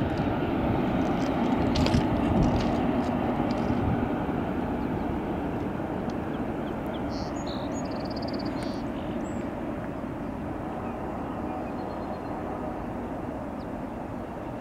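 Steel wheels of a freight train's autorack cars rolling away at speed on the rails, a steady rumble that fades evenly as the train recedes.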